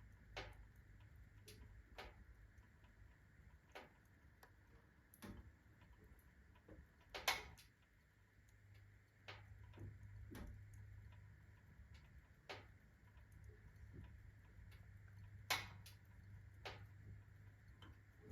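Iron body of a fireplace stove ticking and clicking at irregular intervals, a click every second or two, with two louder cracks about seven and fifteen seconds in: the metal working as it expands under the rapid heat of freshly lit kindling.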